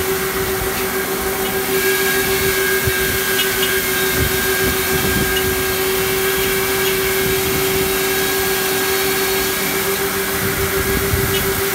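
Tractor running steadily at working speed while towing a planting machine through a field, a constant hum with one strong steady tone over a rushing mechanical noise, with a few faint light ticks.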